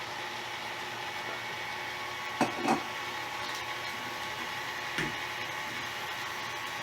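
Electric mixer running steadily at reduced speed, beating eggs and sugar for cake batter. There are two sharp knocks about two and a half seconds in and another near the five-second mark.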